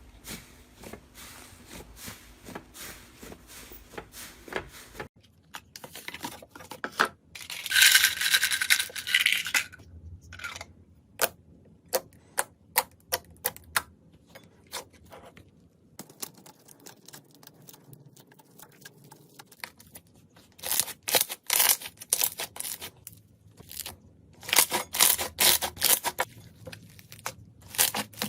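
Slime being pressed, poked and stretched by hand, giving runs of sharp clicks and crackles. About eight seconds in there is a louder, denser patch of crackling, and near the end there are quick runs of clicks.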